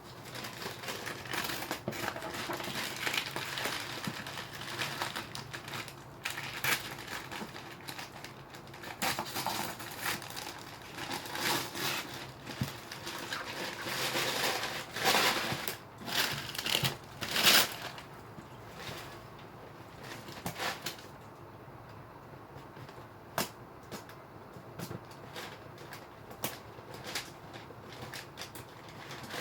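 Parcel packaging being unwrapped by hand: irregular crinkling, crumpling and rustling, busiest over the first eighteen seconds, then quieter with scattered clicks and knocks.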